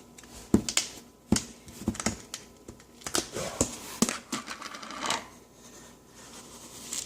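Irregular sharp clicks, knocks and short scraping rustles of a measuring cup and sugar container being handled as white sugar is scooped out.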